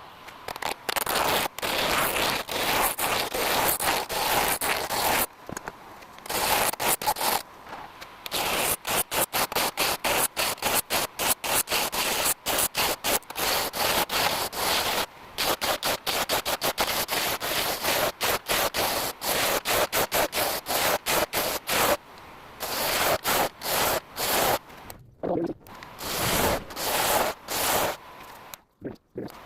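Scraping and cutting noise from a tool working a walnut and cherry pen blank, coming in many short, quickly broken-off stretches with a few brief pauses.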